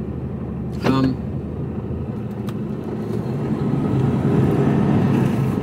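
A lorry's diesel engine drones inside the cab; over the last two to three seconds it gets louder and its note climbs as the truck pulls harder. About a second in there is a brief high-pitched sound, rising in pitch.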